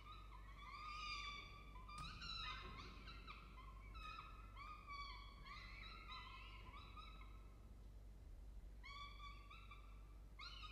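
Downy peregrine falcon chicks giving rapid, overlapping, high-pitched begging calls as an adult feeds them. The calls break off for about a second near the end, then resume, over a low steady hum.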